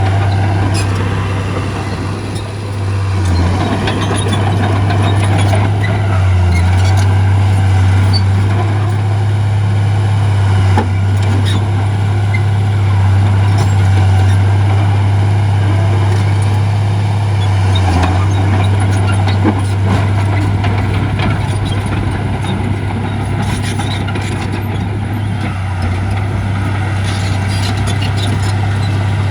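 Heavy diesel earthmoving machinery running steadily with a deep, unbroken drone, with scattered clanks and knocks throughout.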